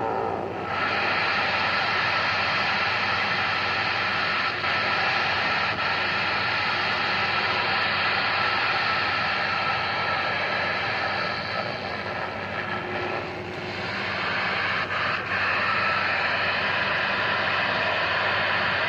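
Galaxy CB radio receiver putting out steady open-channel static, a rushing hiss with no voice, that dips briefly a few times, most clearly about 13 seconds in.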